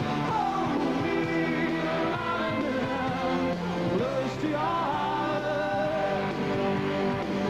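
Live pop-rock band music: a man's voice sings a sliding melody over sustained keyboard chords.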